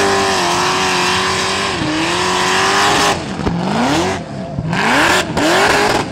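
Holden VL Commodore doing a burnout: the engine is held at high revs with the rear tyres spinning on the tarmac, then from about halfway the revs fall and climb again several times as the throttle is pumped.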